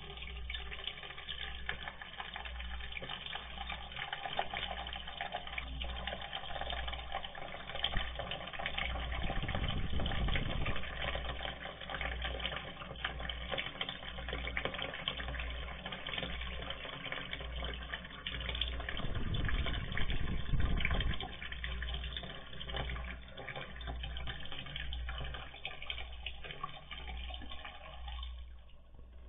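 Water pouring steadily from a water cooler's dispensing tap and spilling onto the floor, the flow kept running by a cat pressing the dispense button. The flow stops near the end.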